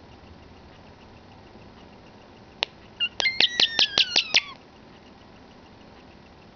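European starling giving a quick run of sharp clicks, about seven in just over a second, mixed with high whistles and a whistle sliding downward, starting about three seconds in after a single click.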